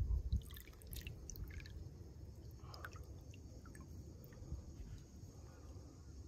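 Quiet water drips and small clicks over a low rumble.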